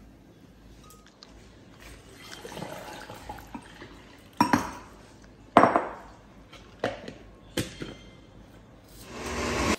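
Water poured from a glass measuring jug into a glass blender jar full of pineapple chunks, followed by several sharp knocks of glass on glass and counter as the jug is set down and the jar is lidded. Near the end a blender motor starts, its noise swelling.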